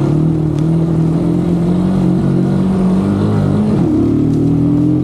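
Motorcycle engine running steadily, its pitch dropping briefly about four seconds in, then picking up again.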